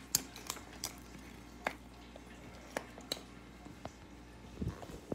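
A hard plastic toilet-shaped candy container being handled and worked open: scattered sharp plastic clicks and taps, with a soft low thump near the end.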